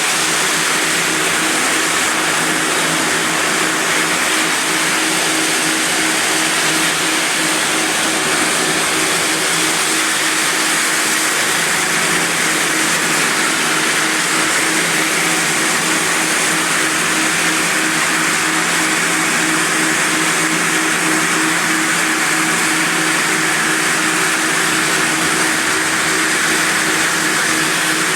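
Quadro floor sanding machine with grit-70 diamond sanding discs grinding down old mosaic parquet in a coarse first pass. It runs steadily as a loud, even grinding rush over a constant motor hum.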